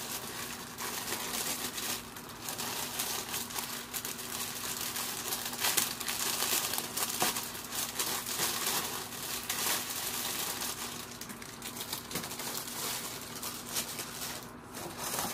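Clear plastic bags crinkling and rustling as they are handled and moved about inside a cardboard box, in irregular crackles that keep up throughout.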